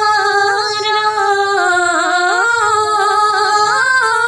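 A woman singing a naat, drawing one syllable out across long held notes with melismatic turns and slides between pitches.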